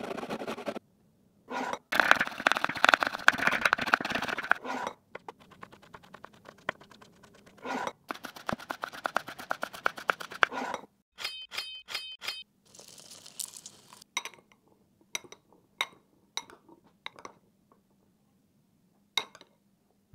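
Kitchen food-prep sounds in quick succession: a carrot rasping on a metal box grater, rapid knife chopping of fresh coriander on a wooden board, then scattered clinks of a metal spoon against a glass bowl.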